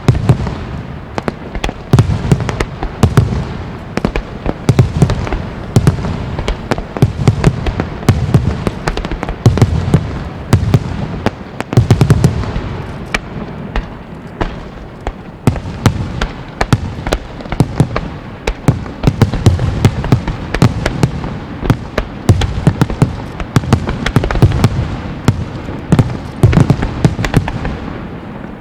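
Wide starmine fireworks display: a continuous rapid-fire barrage of aerial shells, dense sharp crackles and pops over repeated deep booms, with a brief lull right at the end.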